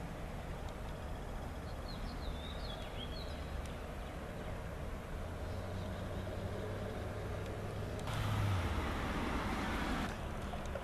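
Outdoor garden ambience: a steady low rumble, a few short high chirps about two seconds in, and a louder rushing noise that swells from about eight seconds and fades near ten.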